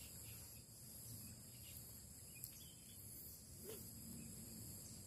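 Near silence: a faint, steady high-pitched chirring of crickets over quiet outdoor background.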